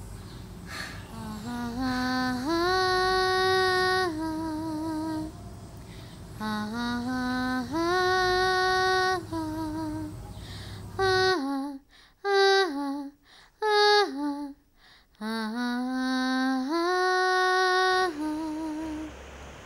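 A woman's solo singing voice carrying a slow melody in phrases of long held notes, several ending in a wavering vibrato. A low steady hum sits beneath the first half and drops out about halfway through.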